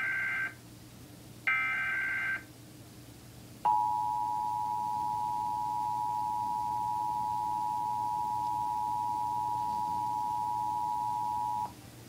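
Emergency Alert System Required Monthly Test played from a television: two short, harsh SAME digital header data bursts, then the EAS two-tone attention signal, held steady for about eight seconds before cutting off abruptly.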